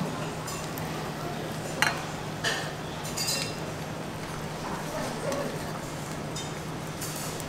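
Chopsticks clinking against a stainless steel pot and a small steel bowl as tteokbokki and ramen noodles are stirred and served out: a few sharp clinks, the loudest about two seconds in, over a steady low hum.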